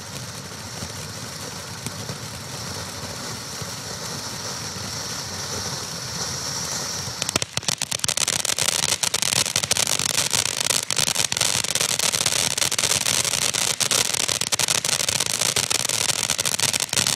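Black Cat Big Cat firework fountain burning: a steady hiss of spraying sparks, then about seven seconds in it switches to louder, dense crackling.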